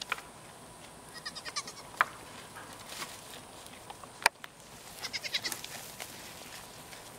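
Goat bleating twice in short, quavering calls, about a second in and again about five seconds in, with a few sharp clicks between them.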